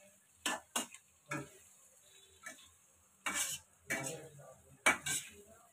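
Metal spatula stirring paneer, capsicum and onion in a black iron kadhai: a string of uneven scrapes and knocks against the pan, over a faint frying sizzle.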